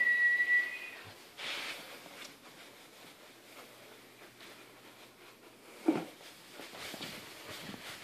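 Malamute puppy giving a brief high whine about a second long, then a short breathy sniff, and a single short thud about six seconds in.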